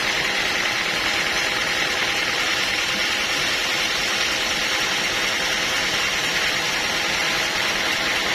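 Band sawmill machinery running with a steady, even noise and no change in level.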